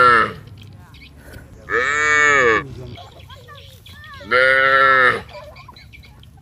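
Cattle mooing: the end of one long call, then two more calls of about a second each, their pitch rising and then falling.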